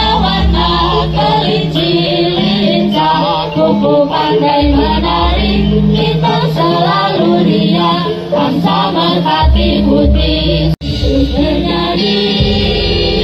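Dance accompaniment music with singing over a steady bass line; the sound cuts out for an instant near the end.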